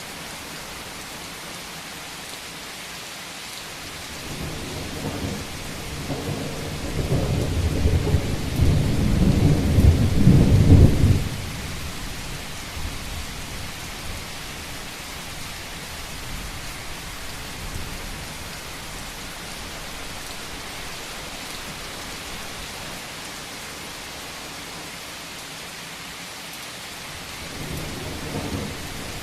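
Steady rain falling on a rooftop, with a roll of thunder that builds about four seconds in, peaks loudest around ten seconds and fades out, and a second rumble starting near the end.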